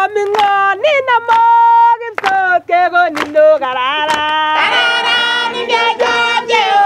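A woman singing unaccompanied, with scattered hand claps; from about four and a half seconds a group of children's voices joins in.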